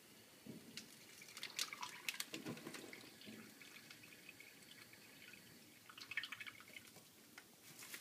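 Faint tap water dripping and trickling into a thin plastic sample bag, mixed with crinkling of the bag and the disposable plastic gloves. The sounds come as irregular clicks and crackles, busiest between about one and a half and three seconds in and again around six seconds in.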